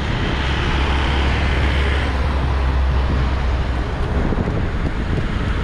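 A car passing close by a moving bicycle, its tyre and engine noise fading out about two seconds in, over heavy wind buffeting on the rider's microphone that eases after about three and a half seconds.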